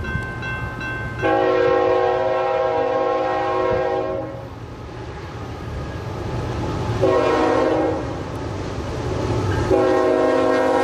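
CSX diesel freight locomotive sounding its multi-note air horn in a long blast, a short blast and another long blast that runs on, the pattern of the end of a grade-crossing signal, over the low rumble of the engine and the freight cars rolling by.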